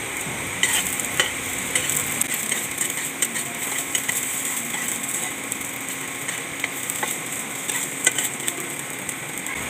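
Hotdog strips sizzling in oil in a nonstick frying pan, with a metal spatula scraping and tapping against the pan as they are turned.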